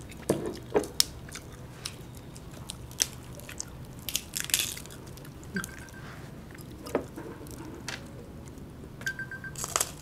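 A person chewing and biting food close to the microphone, with irregular short clicks and mouth noises.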